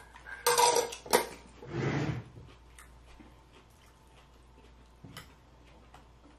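Cutlery clinking and scraping against dishes. There is a cluster of clatters in the first two seconds or so, then only a few light clicks.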